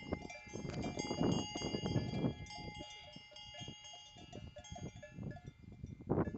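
Livestock bells on grazing animals clanking irregularly, several bells ringing over one another, with one louder clank near the end.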